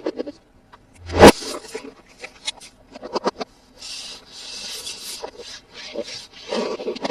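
Hands handling toy packaging and toys: rubbing and scraping, with a sharp knock about a second in, a run of clicks and taps in the middle, and another knock near the end.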